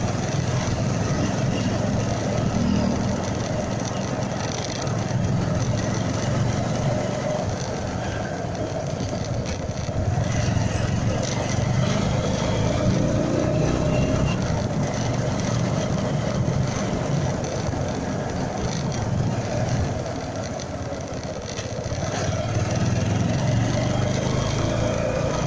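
Motorcycle riding at low speed: its engine running steadily under road and wind noise, picked up by a phone mounted on the bike, with other scooters passing.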